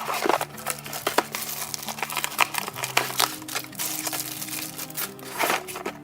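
Packaging being crinkled and rustled by hand in quick irregular crackles, over steady background music.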